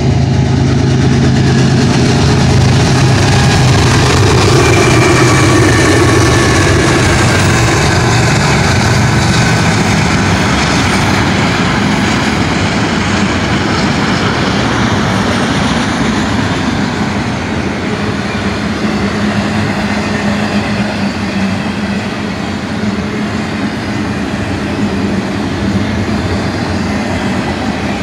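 A BNSF intermodal freight train passes at speed. Its GE diesel locomotives (ES44DC lead, ES44C4, Dash 9-44CW and another ES44DC) drone loudly in the first several seconds. Then comes the steady rumble and clatter of double-stack container well cars rolling by on the rails.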